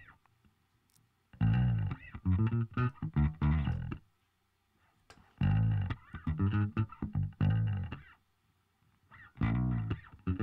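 A recorded guitar part playing phrases of plucked notes, three phrases with short pauses between them. It runs through the Sound Radix Surfer EQ2 plugin in normal mode, so its EQ band tracks the pitch of the notes.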